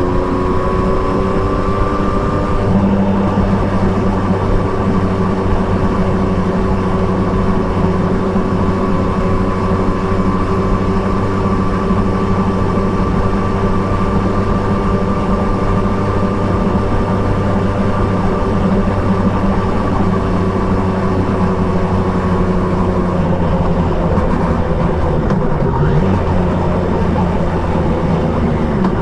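Triumph Trident 660's inline three-cylinder engine with an Akrapovic exhaust, running steadily at road speed. The engine note rises a little in the first couple of seconds, holds steady, then falls off over the last several seconds.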